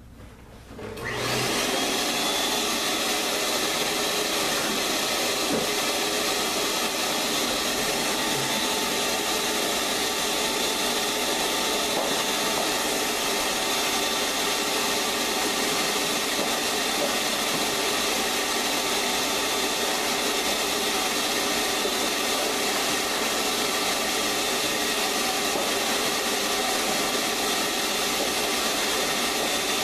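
A vacuum cleaner switches on about a second in, spins up quickly and then runs steadily as its hose nozzle sucks loose carpet fibers out of a carpet-lined wooden box.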